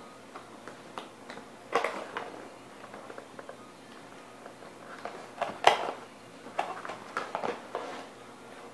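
A cardboard doll box with a plastic window being handled and laid flat on a hard floor: scattered taps, rustles and scrapes, the loudest about five and a half seconds in.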